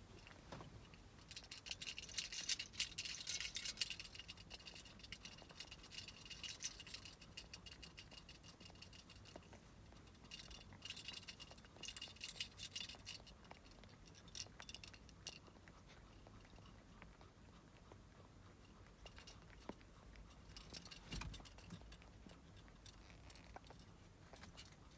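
Faint crackly rustling in several bursts, from cats shifting about in their basket.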